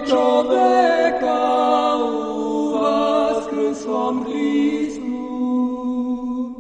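Orthodox sacred chant sung a cappella by a group of voices over a steady held low drone note; the phrase dies away near the end.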